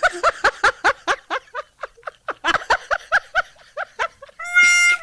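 A high-pitched snickering laugh, a quick run of 'ha-ha' pulses about six to eight a second that thins out partway through. Near the end a tune of held, whistle-like musical notes starts.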